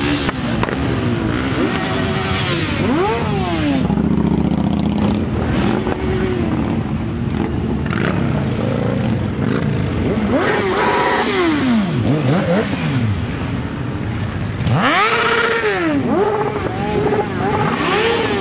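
A stream of motorcycles riding past one after another, each engine rising and then falling in pitch as it goes by. The loudest pass comes about fifteen seconds in.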